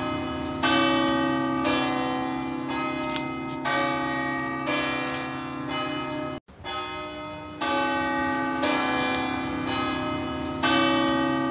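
Pisa Cathedral's three largest bells (San Ranieri, Crocifisso and Assunta) struck in turn as a three-note scale, E, D, C, about one stroke a second, each stroke ringing on under the next over a steady low hum. The ringing cuts out abruptly for a moment about six seconds in, then starts again.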